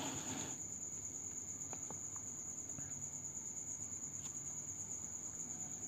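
An insect's steady, high-pitched trill in a quiet room, with a brief faint rustle at the very start.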